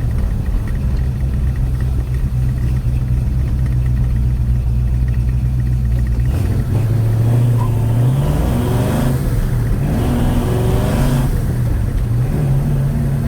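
Chevy 307 small-block V8 running as the car drives. After about six seconds its pitch rises as it accelerates, and near the end it settles back to a steady note.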